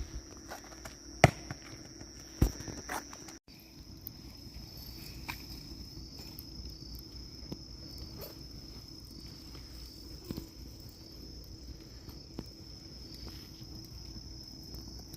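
Night insects chirring steadily at a high pitch, with a few sharp knocks in the first three seconds.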